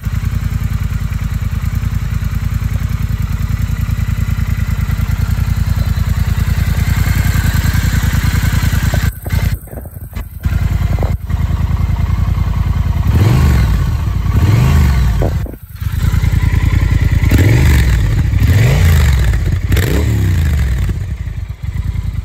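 Triumph Thruxton 1200's 1200 cc parallel-twin engine idling with a steady pulsing beat. In the second half it is blipped about five times, each rev rising and falling back to idle.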